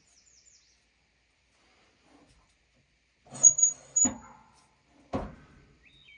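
A short scrape with a high squeak, then two sharp knocks, as a squared maple log is handled on a band sawmill's steel bed; small birds chirp faintly around them.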